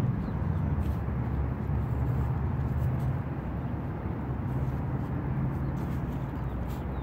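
Low steady rumble of road traffic, easing slightly partway through.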